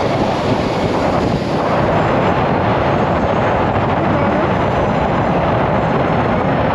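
Steady, loud rushing wind and road noise of a motorcycle ride at speed, with no distinct tone or knock standing out.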